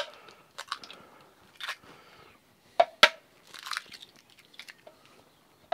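Eggs being cracked open, their shells breaking with a sharp crack at the start and two more close together about three seconds in, and softer crunching of shell in between.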